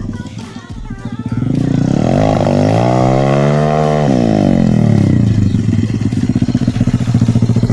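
Motocross motorcycle engine revving: its pitch climbs to a peak about three seconds in, then drops away and settles into a steady, rapidly pulsing run.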